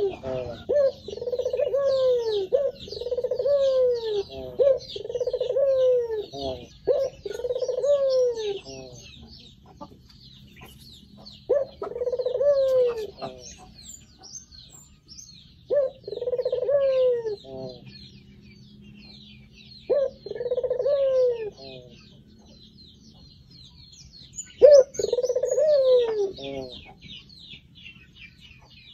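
Birds calling: a repeated low, arching call, each about a second long, comes in a quick run of five and then singly every few seconds, over continuous high twittering of smaller birds.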